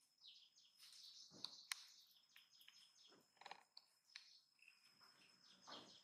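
Faint, high chirping calls from animals, coming irregularly, some falling in pitch, over a steady high-pitched tone, with a sharp click about two seconds in.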